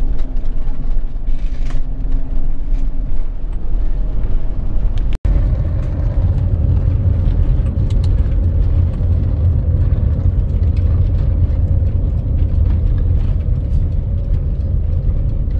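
Camper van driving, heard from inside the cab: a steady low rumble of engine and road noise. It drops out for an instant about five seconds in, then continues with a steady hum over the rumble.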